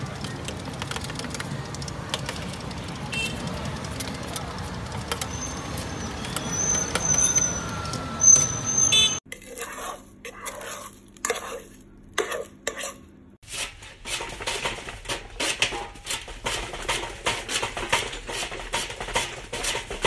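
Three short clips in turn. First, busy street-stall ambience with a metal scraper working a soft paste off a metal board over a pot. After about nine seconds the sound cuts abruptly to a few sharp clicks and crackles. From about thirteen seconds, a hand-lever cutter chops food into cubes with a regular run of sharp chopping strikes, about two a second.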